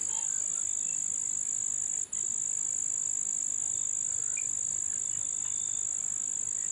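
Dusk insect chorus: a steady high-pitched shrill from many insects, with faint scattered frog calls beneath it. The shrill drops out for a split second about two seconds in.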